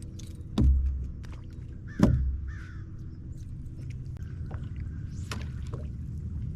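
Two heavy thumps on a fishing boat, about a second and a half apart, with a few lighter knocks, over a steady low hum.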